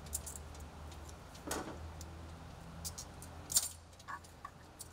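A few faint metallic clicks and clinks of hose clamps being handled and fitted onto a boost-tube hose, the loudest about three and a half seconds in.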